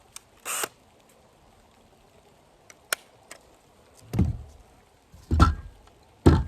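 Handling noises: a short scrape or rustle about half a second in, a sharp click near the middle, then three dull thumps about a second apart near the end.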